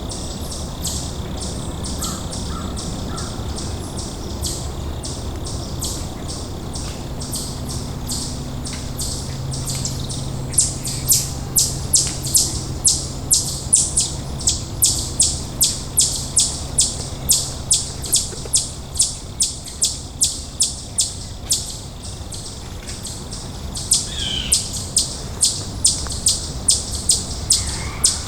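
An animal call in the woods: a long, even series of short, high-pitched chips, about two or three a second, starting about ten seconds in, pausing briefly and starting again, with a single short falling call just after the pause.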